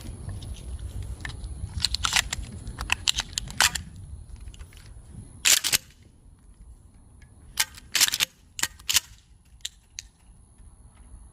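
Sharp metallic clicks and clacks from handling a Mossberg 590A1 pump-action shotgun, its action being worked. They come in several groups, with the loudest double clacks about five and a half and eight seconds in, over a low rumble in the first few seconds.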